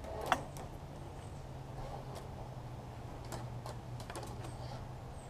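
Scattered light clicks and ticks of a thin steel rudder cable and its small fittings being handled, with one sharper click about a third of a second in. A steady low hum runs underneath.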